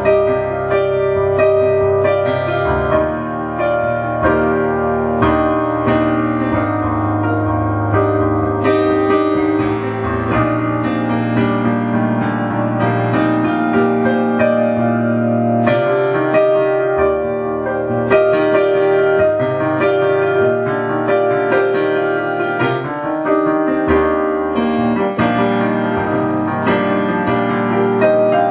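Solo piano-toned keyboard played freestyle by ear: held chords in the middle register with a steady run of struck notes over them.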